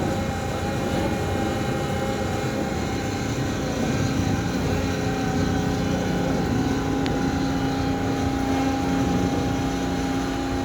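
Concrete mixer truck running steadily: a continuous machine drone with a constant hum, from the engine and the hydraulic drive of the mixing drum.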